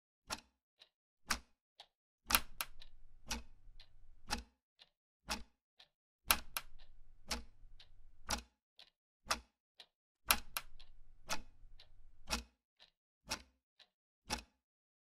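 Clock ticking, sharp clicks about once a second with fainter ticks in between. A low hum comes in under the ticking three times, about two seconds each time.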